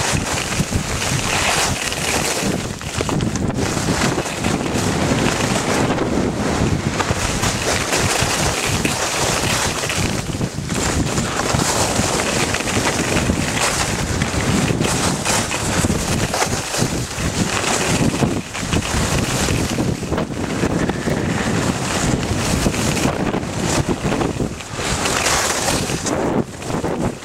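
Wind rushing and buffeting over a helmet-mounted camera's microphone during a downhill ski run, loud and steady with brief dips.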